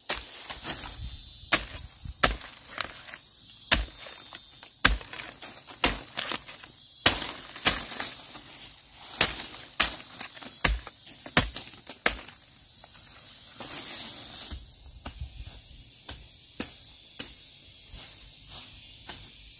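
Repeated sharp chopping strikes of a hand tool cutting grass and weeds, coming irregularly about once or twice a second, over a steady high hiss of insects.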